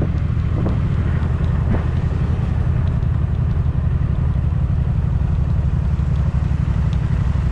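A vehicle under way at road speed in an open-topped vehicle: a steady, unbroken engine drone with wind rush.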